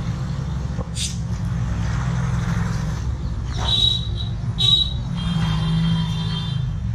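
Street traffic: motor vehicle engines running close by with a steady low rumble, a short hiss about a second in, and a few short high-pitched tones after the middle.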